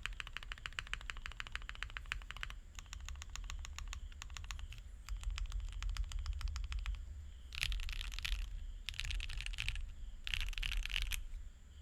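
Typing on a QK60 R2 60% mechanical keyboard with lubed SWK Jieum V2 switches and EPBT keycaps, foam under the PCB only. Three quick runs of keystrokes come first, then three denser, louder bursts of keys pressed all at once near the end.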